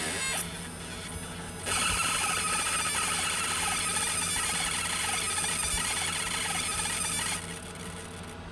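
Laser engraver at work marking an anodized flashlight body: a loud, hissy high whine that starts about two seconds in and drops away near the end, with quieter machine noise before and after.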